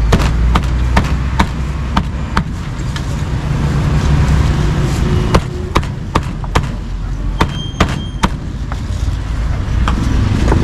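Meat cleaver chopping a grilled duck on a round chopping block: sharp knocks about two a second, in two runs with a short pause between, stopping a couple of seconds before the end. Low street-traffic rumble underneath.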